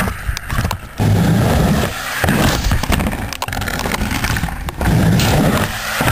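Skateboard wheels rolling on a concrete ramp, a rough rumble that swells and fades as the board rides back and forth, with sharp clacks and knocks of the board hitting the concrete.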